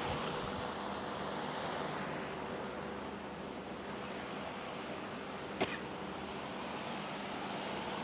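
Steady outdoor background noise with an insect's rapid, evenly pulsing high trill and a faint steady hum, broken by one sharp click a little past halfway.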